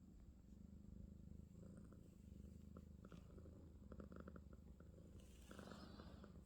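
A Russian Blue cat purring faintly and steadily, in a low pulsing rumble. A short burst of noise comes about five seconds in.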